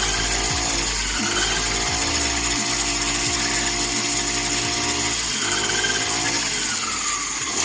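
Honda GX35 four-stroke brush cutter running at speed with a steady high whine, its engine note shifting about two-thirds of the way through.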